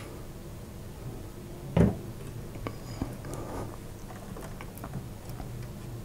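A graphics card set down on a desk with one knock about two seconds in, followed by a few light clicks of handling.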